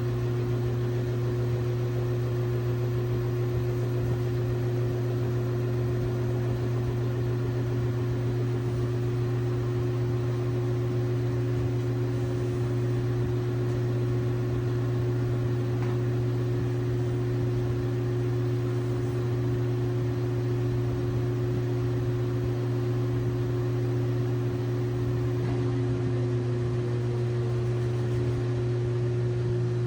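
LG WT7600HVA top-load washing machine running with a steady motor hum, its pitch shifting slightly near the end.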